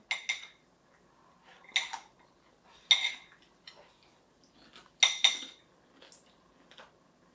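A white ceramic soup spoon clinking against a ceramic bowl as pomegranate seeds are scooped up: about six sharp, ringing clinks at irregular intervals, some in quick pairs.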